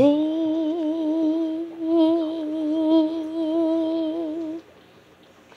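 A person's voice holding one long note with a wavering vibrato, stopping about four and a half seconds in.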